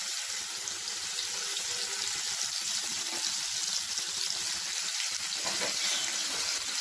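Marinated paneer cubes sizzling in hot oil and ghee in a kadhai, a steady even hiss, frying until browned.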